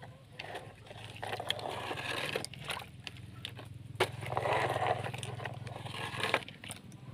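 Plastic toy excavator handled by hand, its bucket and tracks scraping and clicking on wet, gritty concrete in two spells of rasping noise, over a steady low hum.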